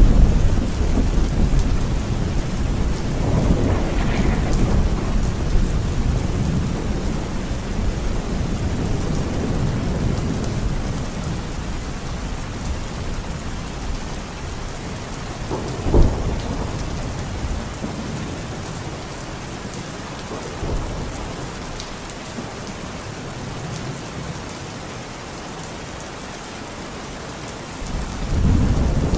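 Heavy rain pouring steadily, with rolls of thunder. There is a rumble at the start, another a few seconds in, a sharp crack about halfway, and a rumble building near the end.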